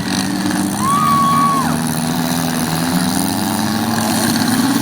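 Several demolition derby car engines running together, their pitches wavering as they rev. About a second in there is a short high tone, less than a second long.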